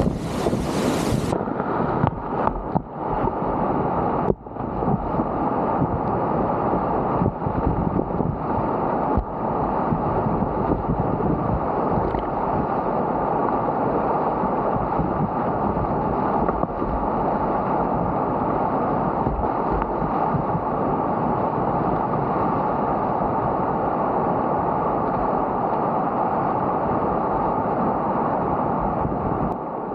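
Loud, steady rushing of high-water whitewater rapids, heard from a kayak running the flooded river, with wind noise on the microphone. A few brief sharp sounds break in during the first ten seconds.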